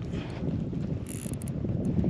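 Daiwa spinning reel cranked steadily, winding in line against a hooked fish that bends the rod, with wind on the microphone.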